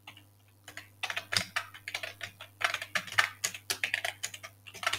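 Typing on a computer keyboard: quick runs of key clicks, starting after a brief pause.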